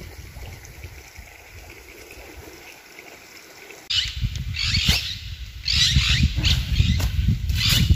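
Wind buffeting the microphone as a low rumble, fairly quiet at first. About four seconds in it turns strong and gusty, with short hissing bursts every second or so.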